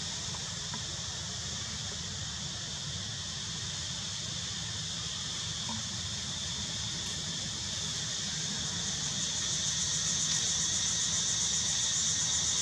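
Steady high-pitched outdoor hiss with a low rumble underneath, growing louder about nine seconds in.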